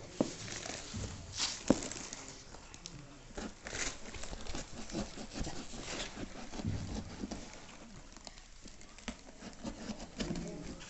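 Scattered handling noises: light clicks, taps and brief rustles, with two short crinkly bursts about a second and a half and four seconds in.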